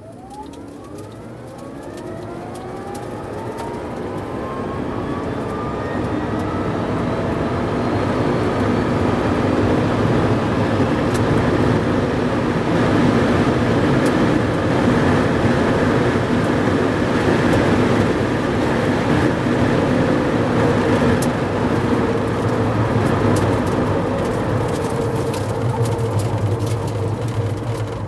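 Rimac Nevera electric hypercar accelerating flat out in reverse from a standstill: the whine of its electric motors rises steeply in pitch over the first several seconds, while wind and tyre noise build into a loud, steady rush at over 220 km/h. The sound starts to ease near the end as the car brakes.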